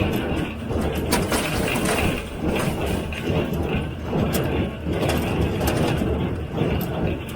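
John Deere 348 square baler with a #42 pan kicker ejector running steadily under tow, with repeated sharp mechanical clacks through the steady machinery noise.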